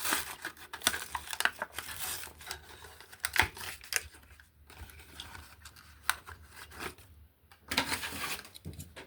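Cardboard-and-plastic blister pack of a Hot Wheels diecast toy being torn and crinkled open by hand: irregular crackles and short rips, with a louder stretch of tearing near the end.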